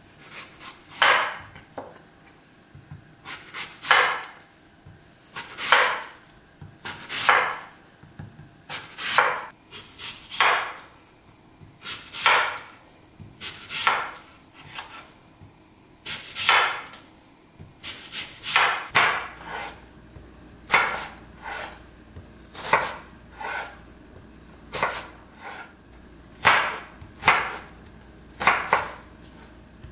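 Chef's knife cutting a raw apple on a wooden cutting board: each cut gives a crisp crunch through the apple and a tap of the blade on the board. The cuts come singly or in quick pairs, about one every second or so.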